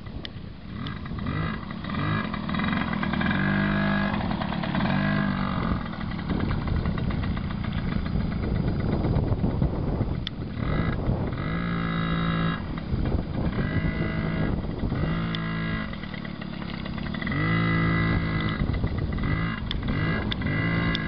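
Suzuki JR50's small two-stroke engine running under a child rider, its pitch rising and falling in repeated bursts as the throttle is opened and eased off.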